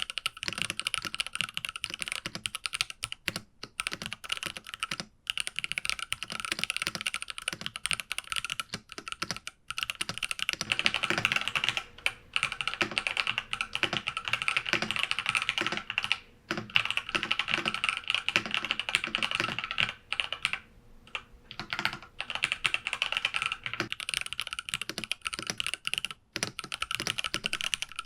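Typing on an IQUNIX F65 wireless mechanical keyboard with TTC Gold Pink switches: a rapid, continuous run of keystroke clacks broken by short pauses, the longest about 21 seconds in.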